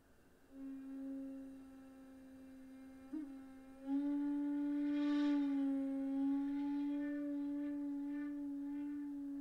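Bamboo shakuhachi playing one long held low note. It starts softly, has a brief accent about three seconds in, then swells louder with audible breath noise and bends slightly in pitch.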